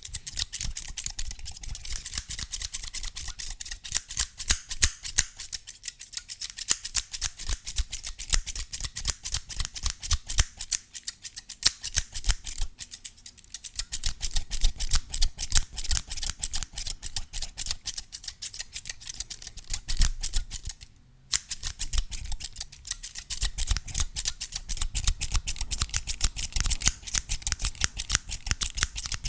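Scissors snipping over and over in quick succession, many crisp snips a second, with a brief pause about 21 seconds in.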